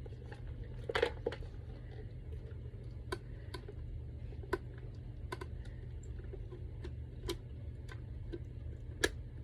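Scattered light clicks and taps of a PVC jelly purse being handled, irregular and a few to the second, over a steady low hum.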